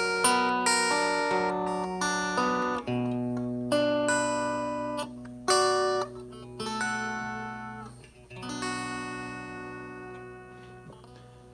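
Electric guitar played through the McGrath Mini amplifier's M channel: a run of picked chords and notes with a thin, scooped tone, the last chord left to ring and fade.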